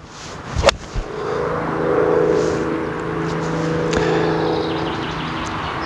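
A golf iron strikes the ball in a full swing, one sharp click less than a second in. A steady engine drone runs underneath, building over the first two seconds and then holding.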